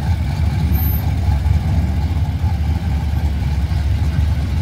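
Drag-race Fox-body Mustang's engine idling loudly with a choppy, uneven low rumble as the car creeps forward towards the line.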